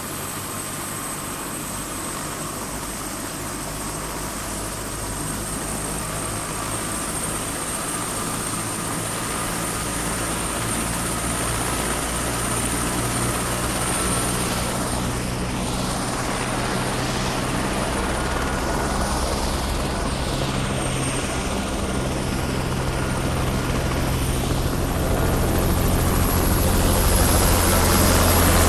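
Helicopter rotor and engine running, a steady low chopping rumble with a faint high whine, growing steadily louder throughout.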